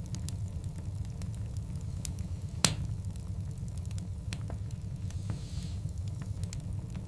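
Wood fire of large burning logs crackling, with scattered small snaps over a steady low rumble. One loud pop comes a little over two and a half seconds in, and a soft hiss follows a little after five seconds.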